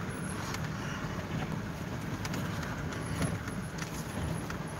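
Steady engine and road rumble heard from inside a vehicle's cabin as it drives slowly over a rough dirt track, with a few light rattles and clicks.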